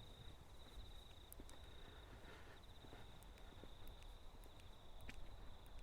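Faint, steady high-pitched trill of night insects.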